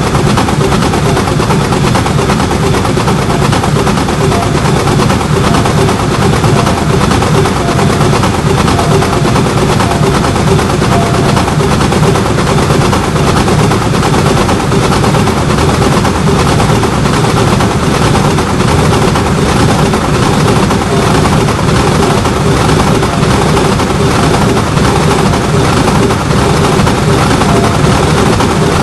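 Level-crossing warning bell ringing continuously, a fast, even run of strikes with a steady ringing tone under it.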